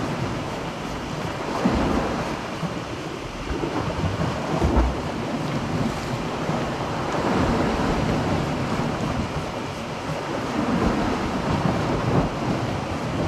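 Sea waves washing against a rocky shore, surging and easing every few seconds, with wind buffeting the microphone.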